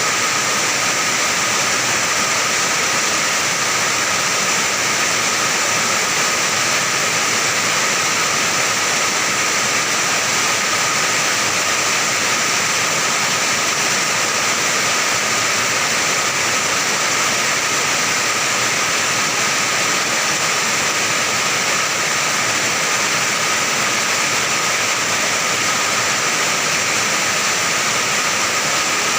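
Heavy rain pouring onto an iron roof: a dense, steady wash of drumming noise that does not let up.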